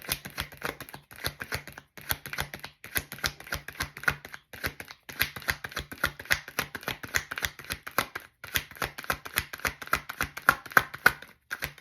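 Tarot cards being shuffled by hand: a rapid, continuous flicking and clicking of cards with a few short pauses, stopping near the end.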